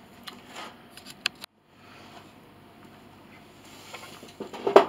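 Faint clicks and light knocks of wood and tools being handled, cutting out briefly about one and a half seconds in, then a louder sharp knock near the end.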